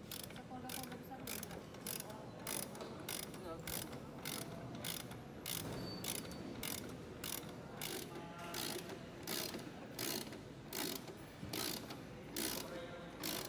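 Hand ratchet wrench being worked back and forth on a bolt, its pawl clicking in short bursts about twice a second, one burst per stroke.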